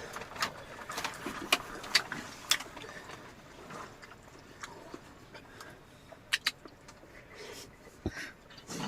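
Eating noises: scattered sharp clicks and taps, several in the first three seconds and fewer after, with a pair of clicks about six seconds in.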